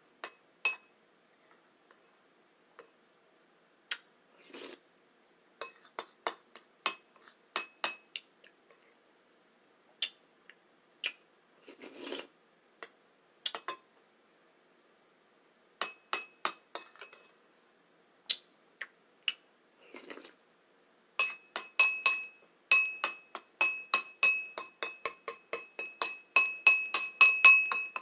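A spoon tapping against a bowl, each tap leaving a clear ringing tone. The taps come singly and scattered at first, then quickly, several a second, for the last seven seconds, where they are loudest. A few brief slurps fall between the early taps.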